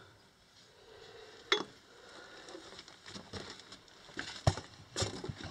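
Quiet handling of old mine artifacts, a stoneware crock and a bucket of nails, with footsteps scuffing on loose rock: a sharp clink about a second and a half in, then a few more knocks and scuffs near the end.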